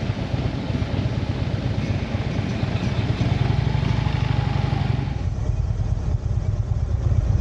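Harley-Davidson Ultra Limited's V-twin engine running steadily while riding, with wind and road noise; the higher hiss drops away about five seconds in.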